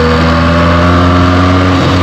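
Benelli TNT 300's parallel-twin engine on its stock exhaust, pulling under load with the revs climbing slowly. Near the end the pitch breaks and drops, as at a gear change, with a haze of wind and road noise under it.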